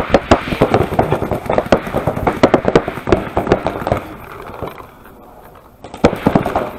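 Paintball markers firing fast strings of shots, several a second. The firing thins to a lull for about two seconds past the middle, then picks up again near the end.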